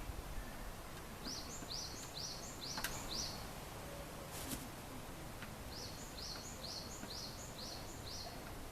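A bird calling faintly in two runs of short, high, rising-and-falling notes, about two notes a second, with a couple of sharp clicks between the runs.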